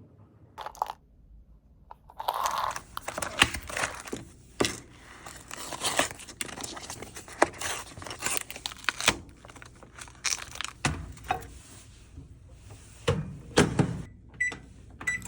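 Rustling, tearing-like noise and repeated knocks of things being handled, with two short beeps near the end.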